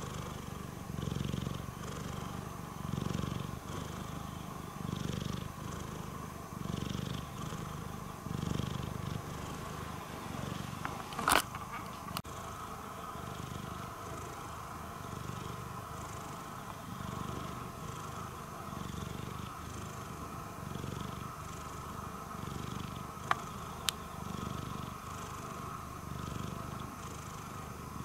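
Domestic cat purring, a low rumble that swells and fades with each breath about every two seconds. A single sharp click about eleven seconds in, with two faint ticks later.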